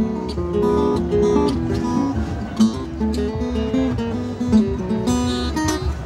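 Background music: a strummed acoustic guitar playing chords and melody notes at a steady rhythm.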